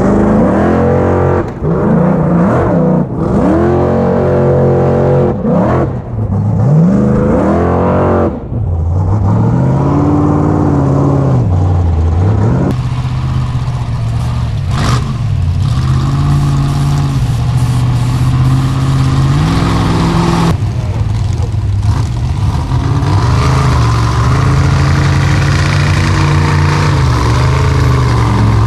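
Formula offroad buggy engine revving hard, the pitch surging up and falling back again and again as the throttle is worked on a steep dirt climb. It switches abruptly to a steadier high-revving note about halfway through and again later, with more noise of spinning paddle tyres and dirt.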